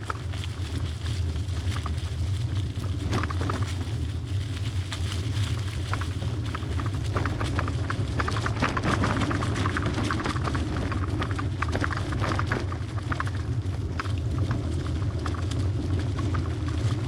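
Wind rumbling on the microphone while a Trek hybrid bicycle rides over a rough dirt trail, its frame and parts rattling and clicking over the bumps.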